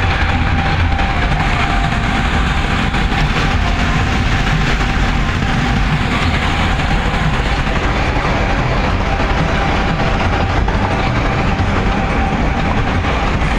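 Steady road and engine noise heard inside a vehicle travelling at highway speed: a loud, even low rumble with tyre hiss and a faint steady whine.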